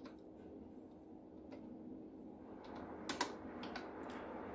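Computer keyboard being typed on: a few separate key clicks at an uneven pace, with the loudest cluster about three seconds in, over a steady low hum.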